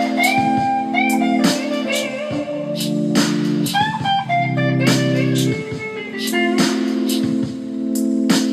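Electric guitar lead on a goldtop Les Paul-style guitar, improvising blues licks with string bends. It plays over a backing track of sustained chords and a steady drum beat.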